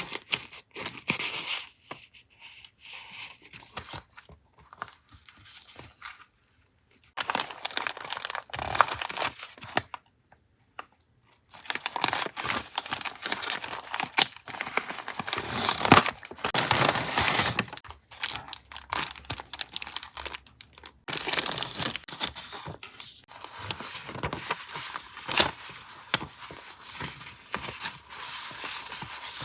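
Paper being handled up close: crinkling, rustling and tearing in irregular bursts, with a brief pause about ten seconds in.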